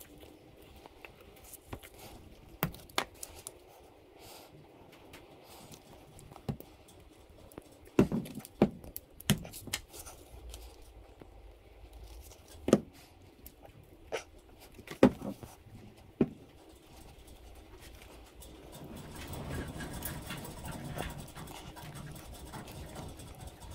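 Workbench handling sounds: plastic squeeze bottles knocked and set down on the wooden bench, with several sharp clicks and taps. Near the end, a wooden stir stick scrapes and swirls on a paper mixing board.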